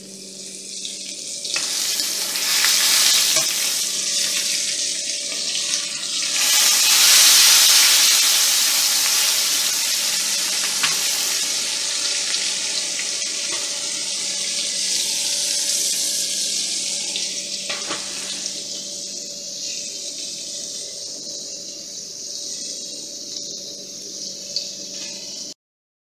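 Pork chop sizzling as it fries in hot fat in a small skillet: a loud steady hiss that swells to its loudest about seven to nine seconds in and slowly eases off, over a steady low hum. It cuts off suddenly near the end.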